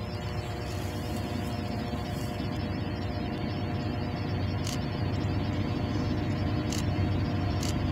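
Approaching Norfolk Southern diesel locomotives, their engines a steady drone that slowly grows louder. A few short clicks in the second half.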